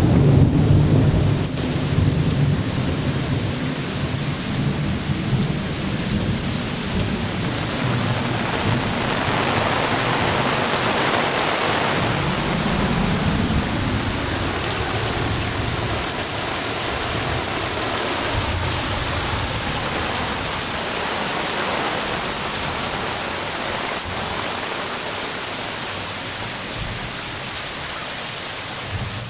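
Steady rain falling with an even hiss. A low rumble of thunder dies away in the first couple of seconds, and a weaker rumble swells and fades about halfway through.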